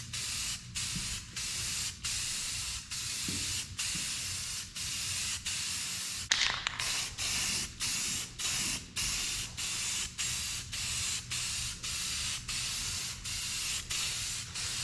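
Aerosol spray-paint can spraying in repeated short bursts, about three every two seconds, with brief breaks between passes. A sharp click about six seconds in.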